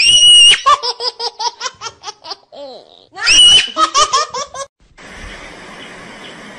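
High-pitched laughter: a shrill squeal, then a run of quick giggles at about five a second, and the same again a few seconds later. Near the end it gives way to a steady, quieter hiss.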